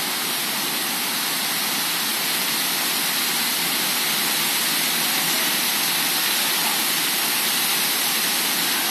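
Heavy thunderstorm downpour with gusting wind through the trees: a steady, even rush of rain.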